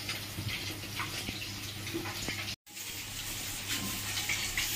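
Fish frying in hot oil, a steady crackling sizzle over a low hum, cutting out completely for a moment a little past halfway.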